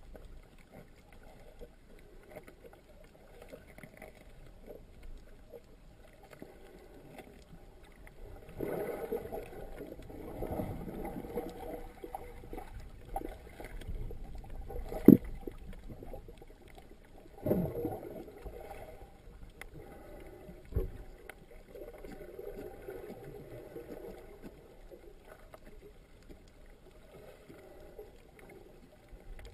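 Muffled underwater water noise heard through a GoPro dive housing: swishing and gurgling surges as the snorkeler moves through the water, with one sharp knock about halfway through, the loudest sound, and a softer knock a few seconds later.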